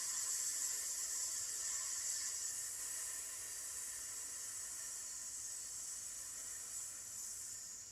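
One long, sustained 'sssss' hiss breathed out through the teeth: the qigong healing sound for the lungs. It gradually fades as the breath runs out.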